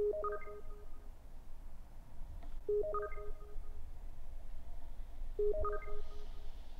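Smartphone ringing: a short run of electronic notes climbing in pitch, repeating about every two and a half seconds, over a low steady hum.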